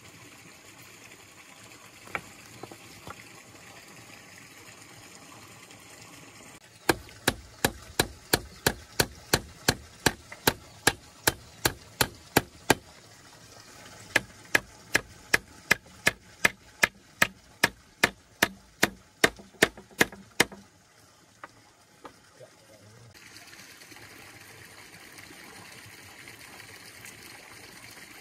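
A hand tool striking wood in steady blows, about three a second, in two runs with a short pause between them. A faint stream runs underneath.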